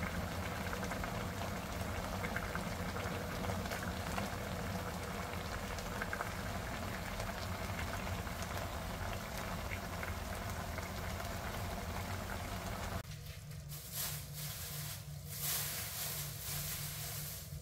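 Radish braising liquid bubbling at a boil in a pan. About 13 seconds in it changes to a quieter, patchier simmer with scattered crackles as the thickened sauce reduces.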